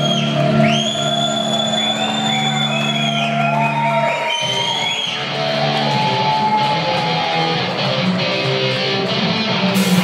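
Live rock band playing, led by electric guitars holding long notes with bends. The held chord changes about four seconds in.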